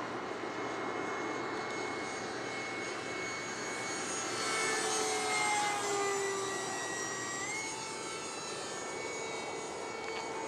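70mm electric ducted fan of a radio-controlled F-16 jet in flight: a whine over a rushing noise, loudest about five seconds in as it passes, its pitch sinking and then stepping back up a little after seven seconds.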